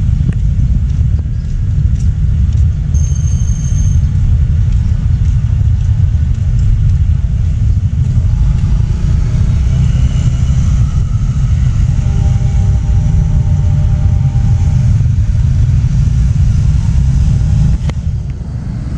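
Road traffic crossing the tracks, motorcycles and a small pickup truck, under a heavy, continuous low rumble that drops away near the end.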